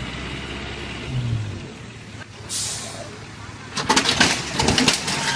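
Heavy truck engine running, with a short loud hiss of air about halfway through, then a burst of loud clattering and banging near the end.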